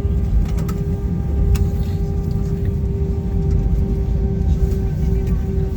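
Cabin noise inside an Airbus A320-200 after landing: a steady low rumble with a steady hum over it, and a few faint clicks in the first couple of seconds.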